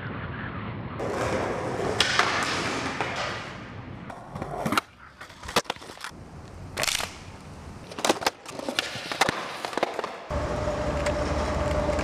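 Skateboard wheels rolling, then several sharp clacks of a skateboard popping and landing in the middle. Near the end a steady low hum with a held tone takes over.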